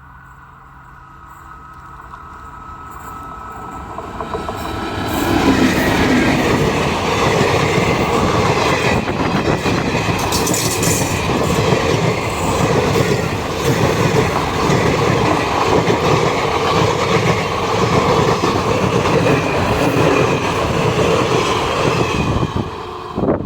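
A train approaching and passing close by at speed: it grows over the first few seconds into a loud, steady rumble with wheels clattering over the rail joints, then drops away suddenly near the end.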